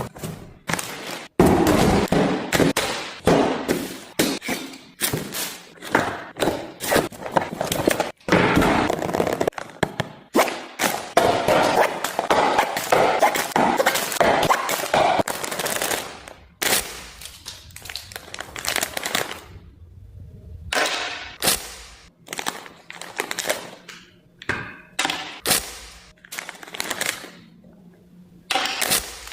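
Beatboxing: a fast run of percussive mouth sounds, sharp clicks and hard hits, dense at first and sparser with short gaps in the second half.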